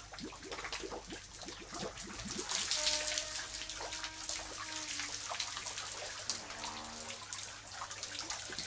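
Water splashing and dripping in a well as a clay pot on a rope is dipped and drawn up, with many small irregular splashes and trickles.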